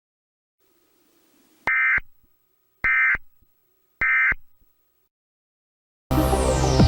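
Emergency Alert System end-of-message code: three short bursts of buzzing digital data tone about a second apart, marking the close of the alert. Electronic music starts near the end with a falling sweep.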